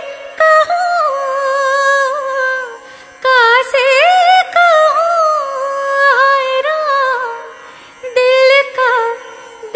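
A woman singing a Hindi film song solo in three long phrases, with held, wavering notes and quick ornamental turns, breaking off briefly for breath about three seconds in and again near the end. A faint steady drone sits beneath the voice.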